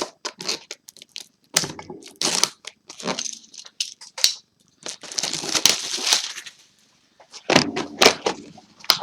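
Plastic shrink wrap and cardboard packaging crackling and tearing as a sealed trading-card booster box is opened. A run of sharp crackles is followed by a longer tearing rustle about five seconds in.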